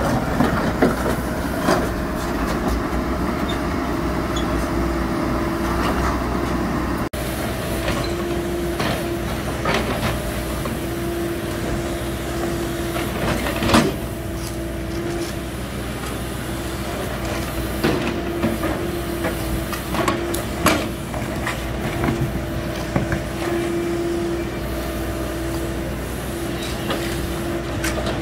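A heavy work machine's diesel engine running steadily, with an on-and-off whine and scattered clanks and knocks.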